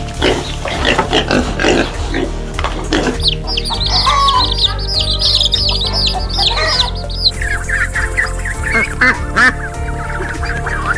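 Birds calling over steady background music: a dense run of high chirps about three seconds in, then a series of lower calls in the second half, typical of ducks or geese.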